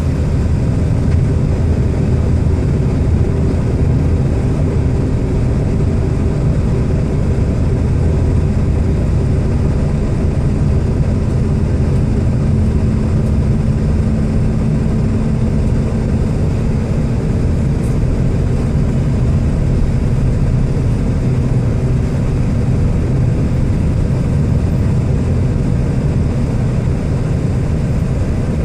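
Steady road noise from a moving vehicle: a low rumble of tyres and engine with a faint, even hum.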